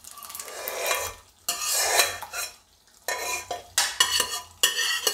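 Boiled dal being scraped out of a metal pot with a spatula into a pan of masala: several separate bursts of scraping and scooping, metal and utensil against the pot.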